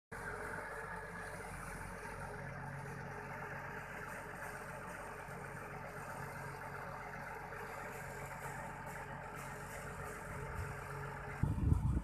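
Engine of a crawler pile-driving rig running steadily, with no hammer blows. A louder low rumble comes in near the end.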